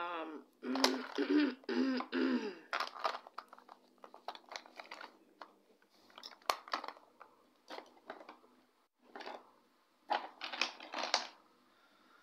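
A short murmured vocal sound in the first couple of seconds, then scattered clicks, taps and rustles of makeup products and a brush being handled and picked up.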